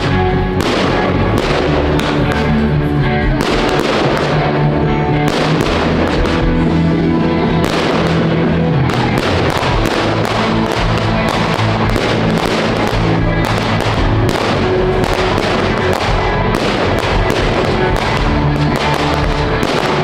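Fireworks going off in a rapid, continuous run of bangs and crackles over loud music with long-held bass notes.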